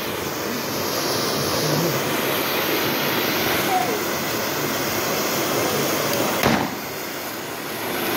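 Steady rushing outdoor noise with a single firework bang about six and a half seconds in.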